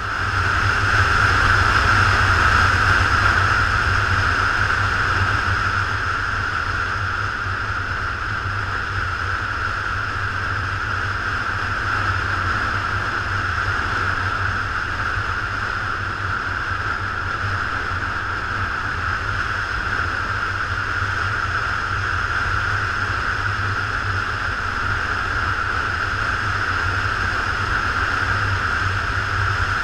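Motorcycle cruising at a steady speed, heard from on the bike: a steady engine drone mixed with wind noise, a little louder in the first few seconds.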